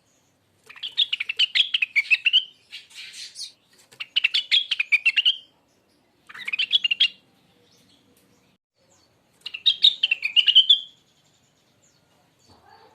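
A young rengganis (cucak wilis) songbird singing in short bursts of rapid, twittering notes. There are about five phrases, each a second or so long, with pauses between them.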